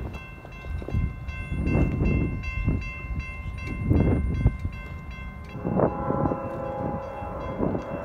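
Distant locomotive horn sounding a steady multi-note chord for about four seconds, then sounding again near the end, over the gusty rumble of wind on the microphone.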